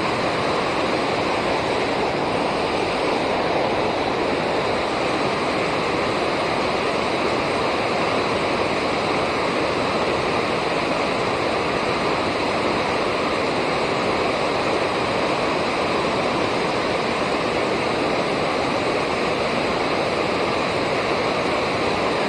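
Water rushing steadily over a river dam, an even, unbroken roar of falling water.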